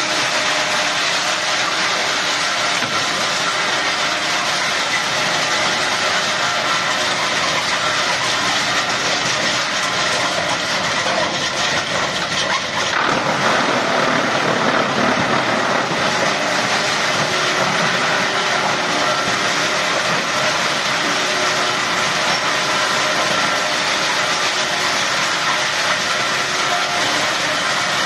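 Large 2113-model industrial wood chipper running under load, chipping wooden pallets: a loud, steady mechanical din. About halfway through it gets heavier and louder for a few seconds.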